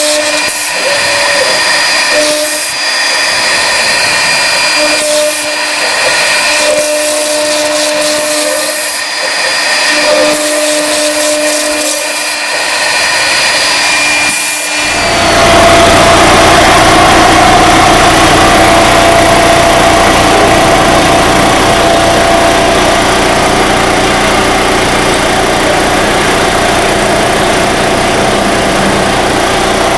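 INNOV FPI-series CNC router's spindle running with a steady whine as the bit cuts acrylic sheet. About halfway through, a louder, rougher noise with a low hum takes over and runs on.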